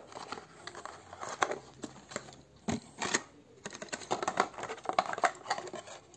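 Cardboard box being handled and worked open, with irregular rustling, scraping and sharp little clicks of the card flaps and packaging.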